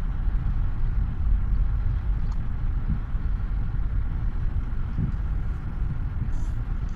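Steady low rumble of tyre and wind noise inside a Toyota's cabin as the car coasts in neutral at about 60 km/h.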